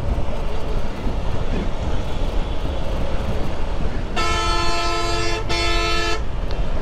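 Steady low wind and road rumble from a motorcycle moving at speed. About four seconds in, a vehicle horn sounds for about two seconds, with a short break in the middle.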